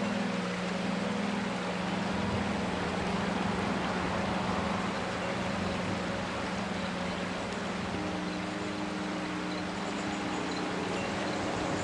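Steady rushing of river water, with a steady low mechanical hum running beneath it and a second, higher hum joining in about two-thirds of the way through.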